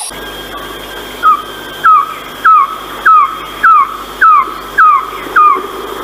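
Philippine trogon calling: a series of eight evenly spaced short notes, each falling in pitch, a little under two a second. A steady high tone runs behind them.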